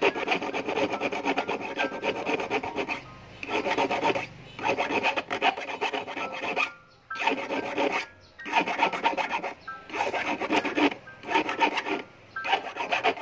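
Hand file rasping back and forth on a steel wire gripped in locking pliers, shaping the end of a handmade fish hook. Rapid strokes come in runs of one to two seconds with short pauses between runs.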